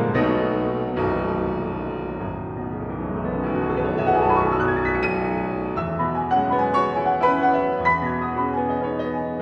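Solo piano playing: held, ringing chords, then a quick rising run of notes about three seconds in, followed by a series of separately struck notes and chords.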